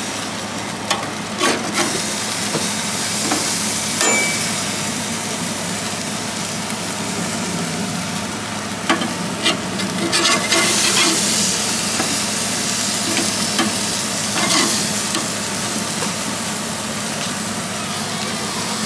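Hamburger patties and hot dogs sizzling on a gas grill, a steady frying hiss. A few sharp clicks from a metal spatula knocking on the grate, about a second in and again around nine seconds.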